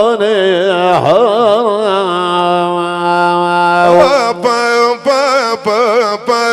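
Middle Eastern folk-song music between sung verses. A wavering, ornamented melodic line plays over a steady held drone, and a beat comes in about four seconds in.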